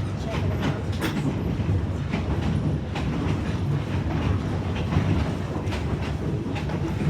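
Train rolling along the track, heard from aboard a passenger car: a steady low rumble with irregular clacks of the wheels over the rail joints.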